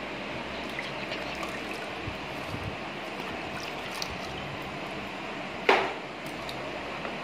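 Water sloshing and splashing in a plastic basin as hands rinse aquarium ornaments and plants, with small scattered clicks. One sudden, much louder hit about two-thirds of the way in.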